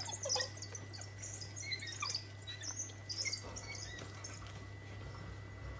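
A pack of African wild dogs feeding on a carcass, making many high-pitched twittering and squealing calls over one another. A steady low hum runs underneath.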